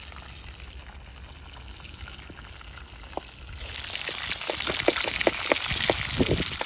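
Knife chopping onions on a cutting board: a run of quick sharp knocks, about three a second, in the second half. Under it a steady hiss that grows louder about halfway through.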